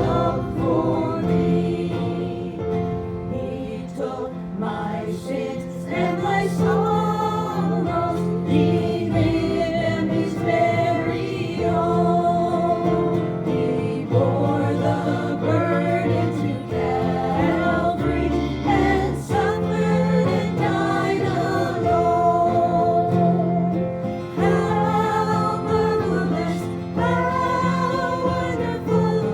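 A group of voices singing a gospel hymn together, with instrumental accompaniment holding steady low notes under the melody.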